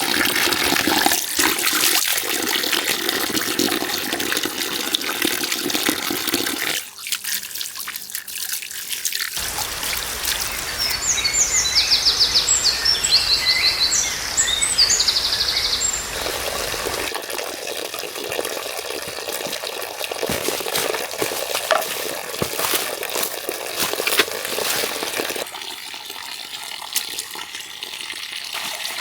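Water running and splashing as a steady rushing noise that changes from shot to shot. Rapid high bird chirps come through in the middle stretch.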